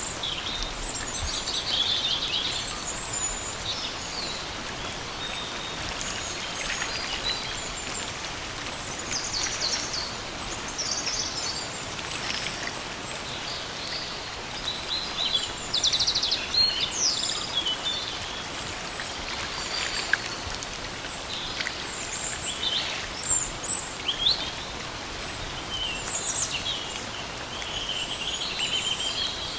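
Steady rain falling in a forest, with many small birds chirping and trilling throughout.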